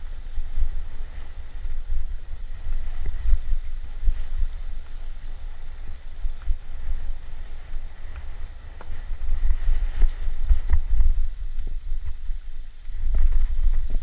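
Low, gusty rumble of wind buffeting the microphone, with a few faint clicks scattered through it.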